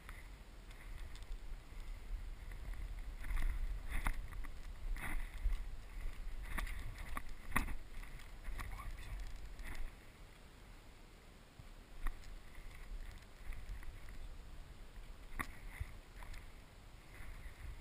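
Low rumble of wind and movement on a body-worn action camera's microphone, broken by scattered sharp clicks and knocks.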